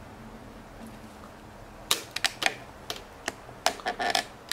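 A run of light, irregular clicks and taps from hard objects being handled, starting about two seconds in.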